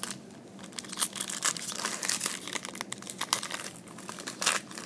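Trading cards being handled and flipped through by hand: irregular crisp rustles and ticks, with a cluster about a second in and another near the end.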